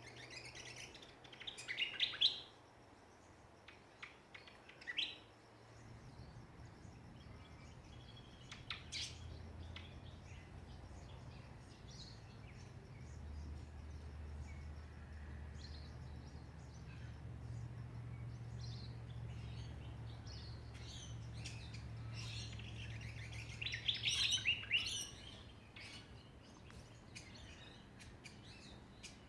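Songbirds chirping in short bursts, with a quick cluster of chirps about two seconds in and a busier flurry of rapid chirps near the end. A low steady hum sits underneath through the middle.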